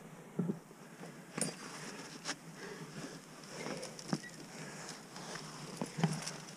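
Climbing gear, a rack of cams and carabiners on a harness, clinking and knocking against itself and the granite, with clothing scuffing on the rock as a climber moves up. The clicks and knocks come scattered, about half a dozen of them.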